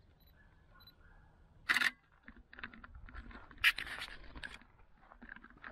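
Footsteps crunching and scuffing on a gravelly path, irregular, with two louder crunches, one just before two seconds in and one a little before four seconds in.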